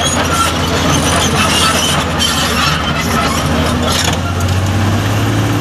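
Heavy diesel engine of an excavator running steadily, its low hum strengthening slightly about four seconds in, with scattered light clicks and clatter over it.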